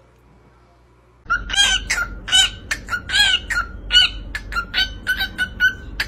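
A pet parrot calling in a rapid run of short, repeated, chirping squawks, several a second, starting about a second in after a quiet moment.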